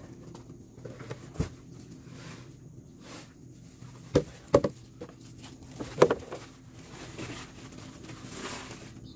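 Plastic containers knocking and clunking as live mealworms are poured between a cut-open plastic jug, a plastic bucket and a wooden tray, with the soft rustle of the worms spilling and being stirred by hand. A few sharp knocks stand out: one about a second and a half in, two close together a little after four seconds, and the loudest about six seconds in.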